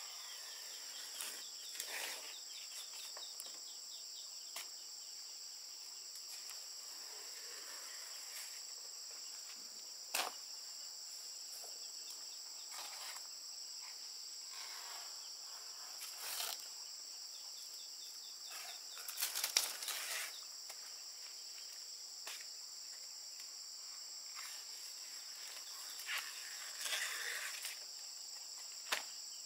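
Steady high-pitched insect chorus, with scattered crisp rustles and snips of fresh banana leaves being cut and handled; the loudest is a cluster of crackling rustles about two-thirds of the way through.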